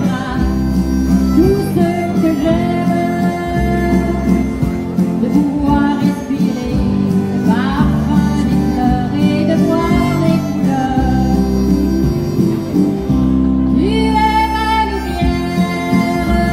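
Live country music: a harmonica playing the lead over acoustic guitar and a steady bass line.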